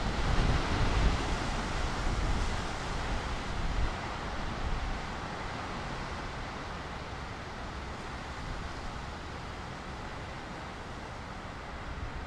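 Storm-force wind gusting through tall trees, with heavy rumbling buffeting on the microphone. The gust eases after about four or five seconds into a steadier, quieter rush.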